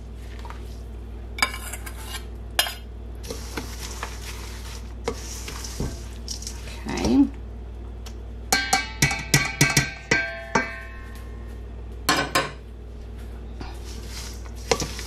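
Metal spoon scraping and clinking against a stainless-steel saucepan and mixing bowl as a warm melted mixture is scraped out over nuts and seeds, with a quick run of ringing metal clanks about two-thirds of the way in. Near the end, a hand begins tossing the mixture in the bowl.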